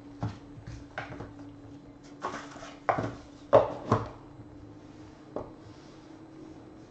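Trading cards and a cardboard card box being handled and set down on a table: a handful of sharp taps and knocks, the loudest about three and a half seconds in, with a short rustling scrape just after two seconds, over a faint steady hum.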